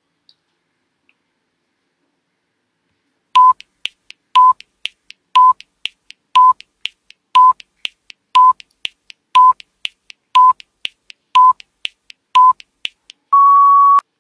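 Electronic countdown beeps: starting about three seconds in, ten short beeps one a second, each followed by a soft tick, then one longer, slightly higher beep to finish the count.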